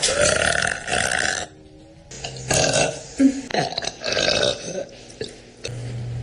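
A woman burping loudly, several long burps one after another with short pauses between them.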